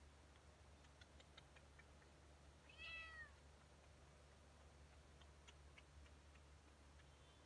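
A calico cat gives one short meow about three seconds in, its pitch rising and then falling. A few faint clicks come before and after it.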